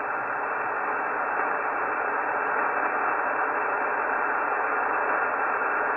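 Shortwave band noise: a steady hiss from a web SDR receiver in upper-sideband mode on the 20-metre band, with no signal readable.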